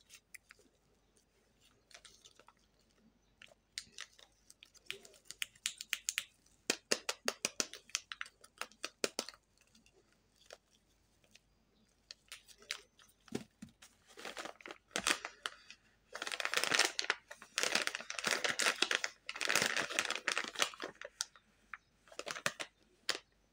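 Candy packaging handled by hands: scattered sharp crackles and clicks at first, then a long run of dense plastic-wrapper crinkling from a little past the middle, the loudest part, as the plastic pouch of bubble gum is handled.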